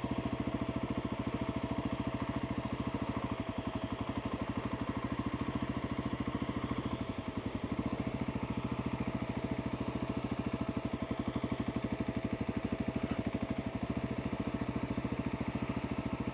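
2021 Husqvarna 701 Supermoto's single-cylinder engine, through a Wings aftermarket exhaust, running steadily at low revs with evenly spaced firing pulses while the bike is ridden slowly over a dirt trail.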